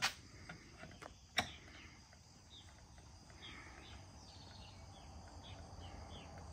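Two sharp clicks in the first second and a half as a metal sinker mold is handled under an electric lead-melting pot, then a quiet stretch with faint, scattered insect and bird chirps.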